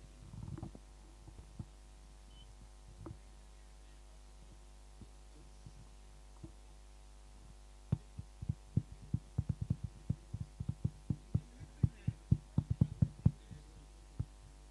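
Steady electrical hum. From about eight seconds in, a quick irregular run of soft low thumps and knocks lasts for about five seconds.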